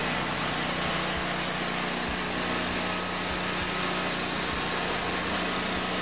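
TimberKing 2000 portable band sawmill running steadily: an even engine drone with a strong high hiss over it, unchanging throughout.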